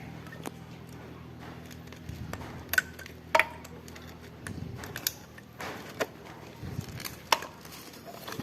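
Scattered clicks and knocks from a cheap battery spot welder and its parts being handled and taken apart, over a steady low hum that stops about halfway through.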